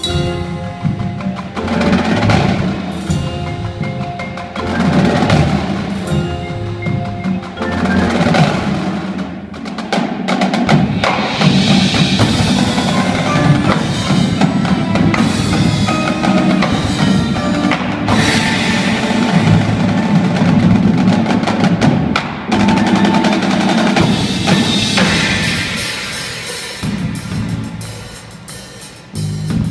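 Indoor drumline playing: marching snare drums, multi-tenor drums and bass drums with a front ensemble of marimbas and other mallet percussion. The music swells and dips in loudness, fades down near the end, then comes back with a sharp hit.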